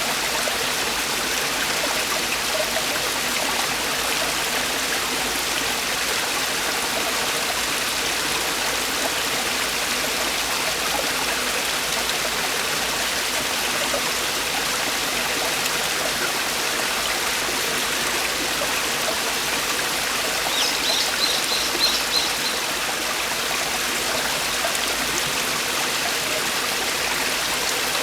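Mountain stream water falling and rushing over rocks in a steady, unbroken rush. About two-thirds of the way through, a bird gives a short run of about five quick, high chirps.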